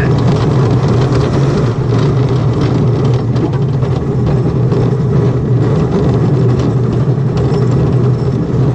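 Roller coaster train running along its track, a loud steady rolling noise with no pauses.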